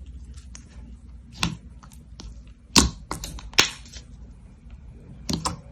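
Slime being pressed and worked by hand, giving sharp crackling clicks and pops. There are a few a second at most, with the loudest about three seconds in and a quick cluster near the end.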